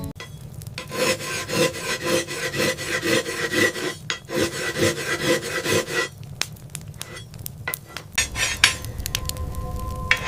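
Rhythmic scraping or filing strokes, about three a second, for several seconds, followed by a few scattered scrapes and clicks.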